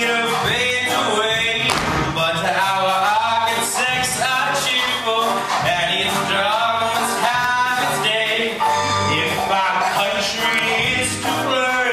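A man singing a musical-theatre song over band accompaniment, heard from the audience of a live stage performance.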